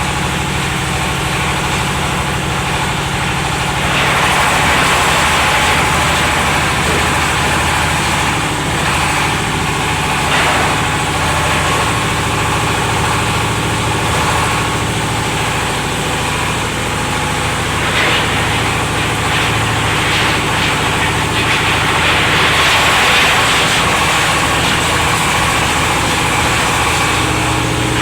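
An engine running steadily at an even speed, with a rougher, louder stretch starting about four seconds in.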